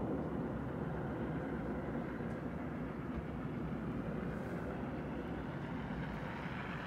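Steady road traffic noise: an even rumble with no distinct events.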